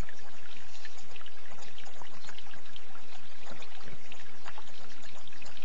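Running water trickling steadily, with a constant patter of small splashes.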